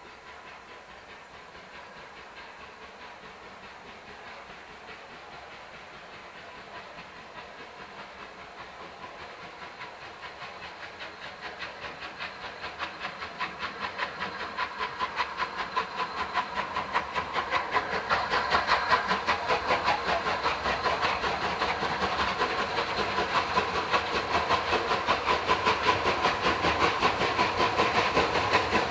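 Rebuilt Bulleid Battle of Britain Pacific No. 34059 working a train towards the listener, its three-cylinder exhaust beating steadily with a hiss of steam. It starts faint and grows steadily louder as it draws near.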